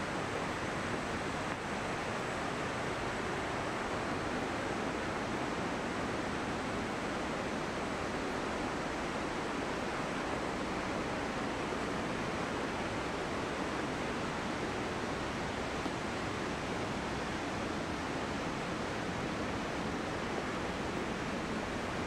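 A waterfall rushing steadily: an even, unbroken wash of noise.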